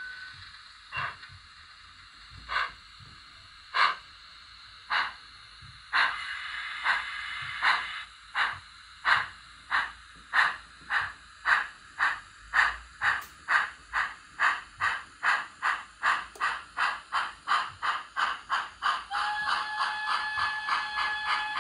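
Accurascale GWR Manor 4-6-0 OO-gauge model's factory-fitted LokSound 5 sound decoder, heard through the model's small speaker, playing a steam locomotive pulling away. The exhaust chuffs start about a second apart and quicken to about three a second, with a hiss between the early beats. Near the end a steady whistle-like tone sounds over the chuffs.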